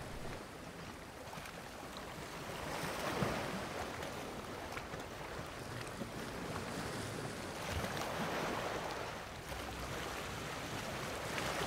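Soft, toneless rushing noise, like surf or wind, that swells and eases slowly over several seconds.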